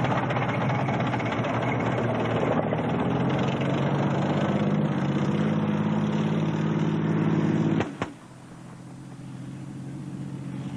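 Engine of a heavy, branch-camouflaged armoured military vehicle running as it drives, a loud steady engine note. About eight seconds in, the sound cuts off abruptly with a click, and a much quieter engine noise slowly grows after it.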